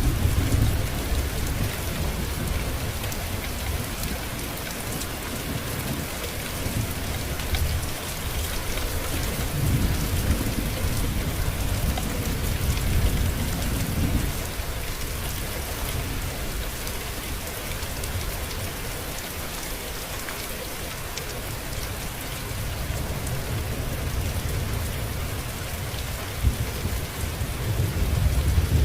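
Steady rain falling, with rolling thunder. One rumble fades out in the first couple of seconds, another comes from about nine to fourteen seconds in, and a third builds near the end.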